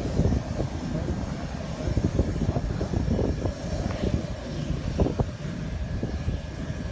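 Saab Gripen E fighter's GE F414 turbofan running as the jet rolls along the runway: a loud, uneven low rumble with a faint steady whine above it.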